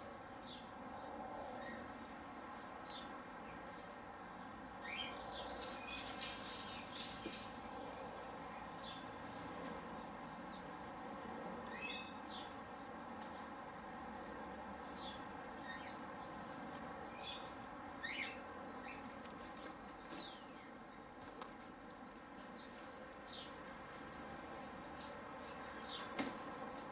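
Small aviary birds chirping on and off: short high calls, many sweeping downward in pitch, scattered throughout, with a livelier cluster around six to seven seconds in, over a faint steady background.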